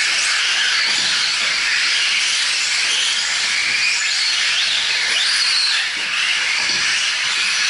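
Several 4WD short course RC trucks racing on dirt: the high-pitched whines of their electric motors rise and fall as they speed up and slow down, over a steady hiss of tyres and loose dirt.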